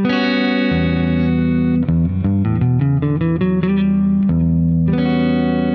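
Guitar strikes a G major 7 flat 5 chord, then plays its notes one at a time as an arpeggio over a held low E bass note. It strikes the chord again about five seconds in. Over the E bass the notes sound as an E minor 6/9 chord, a Dorian colour.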